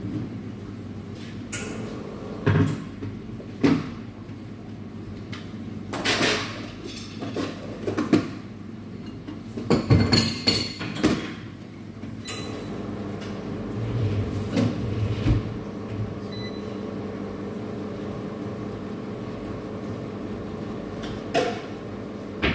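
Coffee bar work sounds: a dozen or so knocks and short clatters of cups and equipment over a steady machine hum, which grows a little louder about halfway through.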